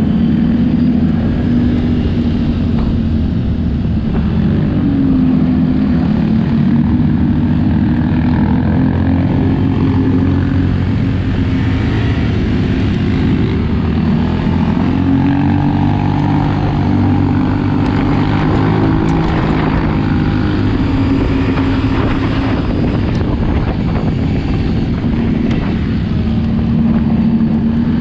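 ATV engine running continuously, its revs rising and falling several times as the throttle is worked.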